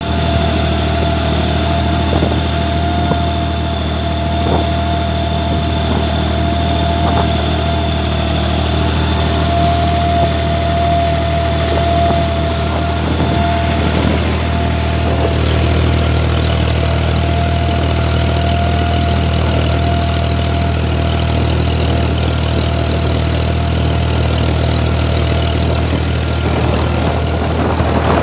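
Fiat 570 DT tractor's diesel engine running steadily under load while pulling a plough through the soil, with a thin steady whine over the low engine hum.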